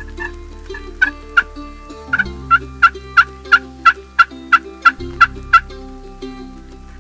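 Wild turkey yelping: a run of about a dozen short, sharp yelps, roughly three a second, ending a little past halfway.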